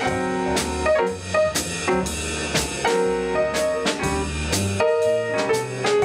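Jazz piano solo with double bass and drum kit accompanying: a bebop blues played by the rhythm section while the horns rest, with quick piano phrases over a steady swing on the cymbals.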